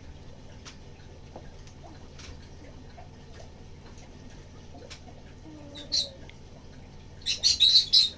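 Persian cat snoring: faint, short whistling snore tones every few seconds. A brief sharp high-pitched squeak comes about six seconds in, and a rapid run of louder high-pitched squeaks near the end.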